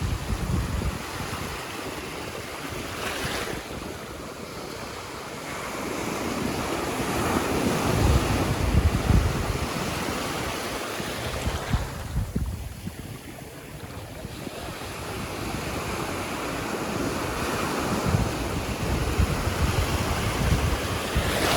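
Surf washing onto a beach, the rush of water swelling and falling away over several seconds, with wind buffeting the microphone.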